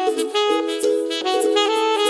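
Alto saxophone playing a melody of short and held notes over a steadily strummed ukulele accompaniment.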